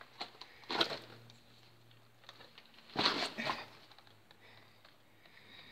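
Scuffs and scrapes of a person clambering down over wet cave rock: a short scrape about a second in and a longer one around three seconds in, with faint taps between.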